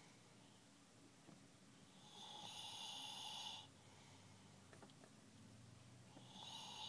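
A man snoring in his sleep: two long snoring breaths about four seconds apart, the second starting near the end.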